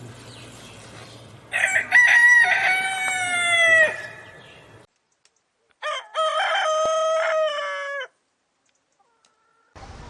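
Rooster crowing twice, each crow about two seconds long, the first dropping in pitch at its end. The two crows come from separate recordings, with dead silence between them.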